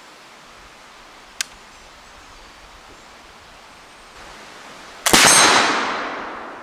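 .50 caliber flintlock longrifle firing about five seconds in: a short crack and, a split second later, the loud report, whose echo dies away over about a second and a half. A single sharp click sounds about a second and a half in.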